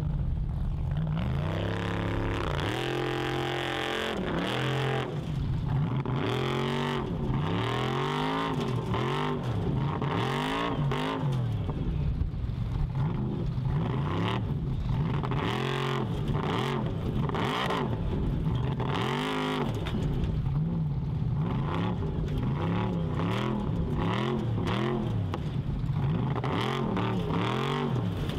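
Formula Offroad buggy's engine revving hard and repeatedly under load as it climbs a steep dirt hill. The pitch rises and falls over and over, about once a second, as the throttle is blipped and the wheels spin and grip.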